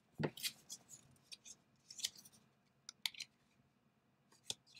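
Faint, crisp rustles and small ticks of stiff cardstock being handled: a folded paper card with acetate windows is picked up off a cutting mat and opened.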